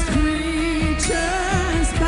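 Live worship music: a singer holds long, wavering notes over steady band accompaniment.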